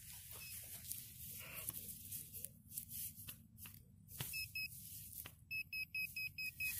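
Short, high electronic beeps from metal-detecting gear signalling a buried metal target: two beeps, then a quick run of about seven near the end. Beneath them, scattered scrapes and clicks of a hand digger working into grassy soil.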